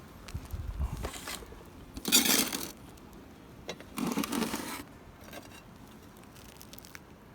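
Two short rustling scrapes about two seconds apart, each lasting under a second, after a low rumble at the start.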